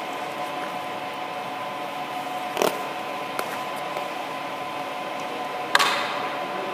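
Steady mechanical hum with a few fixed tones. A sharp knock comes about two and a half seconds in, and a louder knock near the end is followed by a short fading hiss.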